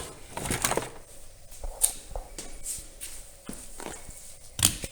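Car battery being lifted out of its tray: irregular plastic knocks, clicks and scraping, with a sharp knock about two seconds in and a louder one near the end.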